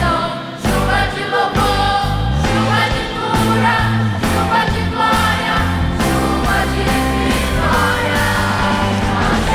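Adolescent choir singing a Christian gospel song live, with band accompaniment and a steady beat.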